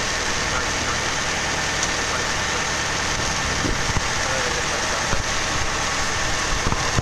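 Boat hoist (travel lift) engine idling steadily while holding a yacht in its slings.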